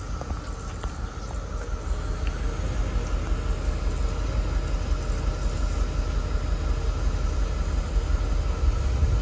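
1984 Mercedes-Benz 380 SL's 3.8-litre V8 idling smoothly and quietly, a low exhaust note heard close to the twin tailpipes through the original exhaust with a replacement resonator, growing louder over several seconds. Cicadas buzz steadily behind it.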